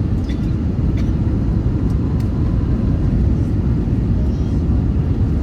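Steady low rumble of a moving vehicle heard from inside its cabin, with a few faint ticks.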